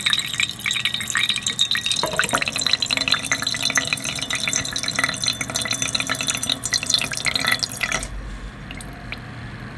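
Liquid trickling and dripping from a separatory funnel's stopcock into a glass beaker, a fast patter of drops and splashes. The patter stops about eight seconds in as the stopcock is turned, leaving a faint hiss.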